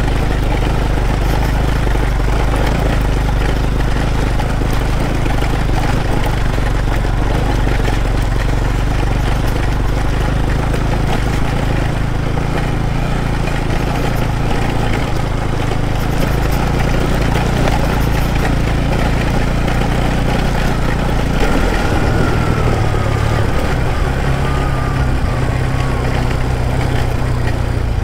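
Motorcycle engine running steadily at low revs, its note changing about three quarters of the way through.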